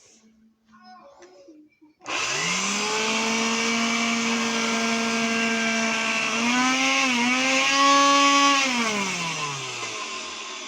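A 1970 Regina electric broom vacuum cleaner's motor switching on and spinning up to a steady high whine, its pitch rising and wavering for a few seconds, then switching off and winding down, the whine falling in pitch as it fades.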